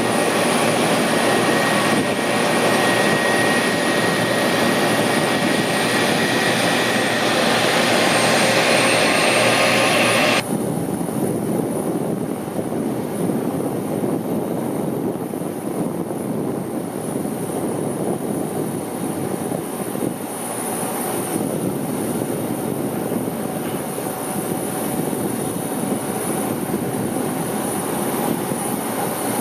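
Jet engines of taxiing airliners running at low power: a steady rush with a thin high whine. About ten seconds in it cuts suddenly to a quieter, duller engine noise with less hiss.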